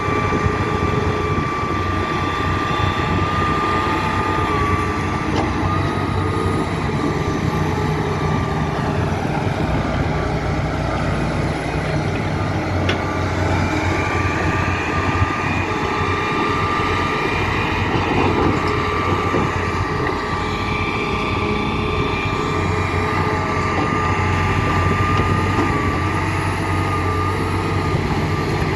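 Hitachi Zaxis 350 hydraulic excavator working: its diesel engine runs steadily with a deep hum under a steady high whine, while fainter higher tones rise and fall in the middle stretch.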